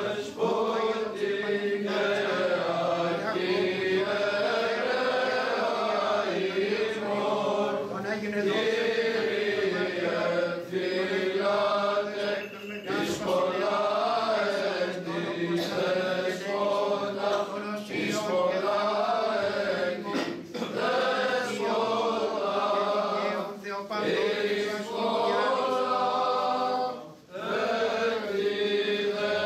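Male voices singing Byzantine Orthodox chant: a slow, melismatic melody carried over a steady held drone note (the ison), with a few brief pauses for breath.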